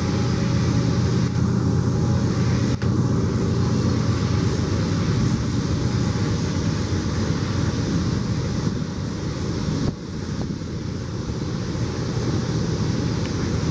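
Steady low rumble of a BNSF double-stack container train's cars rolling across an elevated steel bridge, with wind noise on the microphone.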